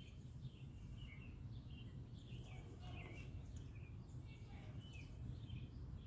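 Faint, scattered bird chirps over a steady low outdoor rumble.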